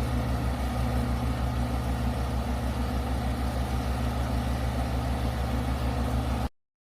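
An engine idling steadily with an even low pulse, cutting off abruptly near the end.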